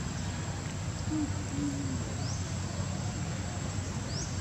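Outdoor ambience: a steady rushing noise, with a short, low two-part hoot a little over a second in and a few faint, quick rising chirps.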